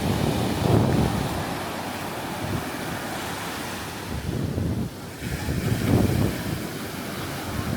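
Wind buffeting the microphone over the steady wash of surf, with the gusts swelling twice, about a second in and again late on.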